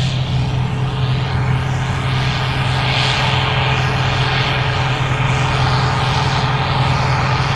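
Gleaner R65 combine running steadily while harvesting corn: a constant engine drone with a strong low hum and a rushing, mechanical noise that swells slightly now and then.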